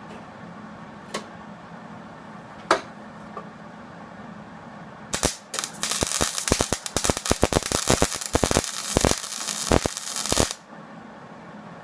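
Wire-feed welder laying a plug weld in sheet-steel rocker panel: an arc that crackles and pops for about five seconds and then cuts off suddenly. Before it there are a few sharp single clicks.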